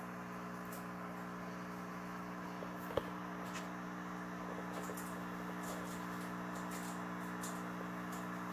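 Steady low mechanical hum, like a fan or appliance motor running, with one sharp click about three seconds in and a few faint ticks later.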